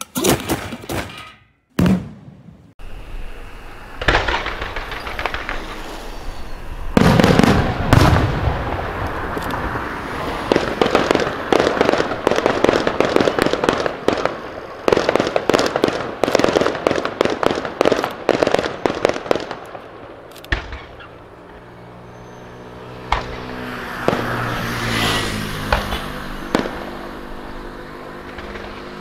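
Aerial fireworks shells bursting in rapid, crackling succession, with heavy booms about seven to eight seconds in. After about twenty seconds the bursts thin out.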